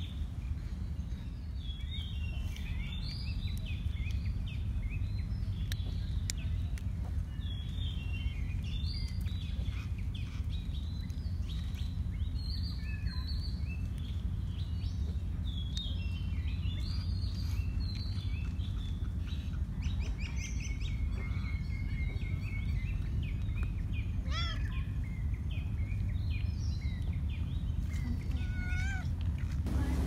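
Many small birds chirping all through over a steady low outdoor rumble, while a tabby cat meows twice in the second half.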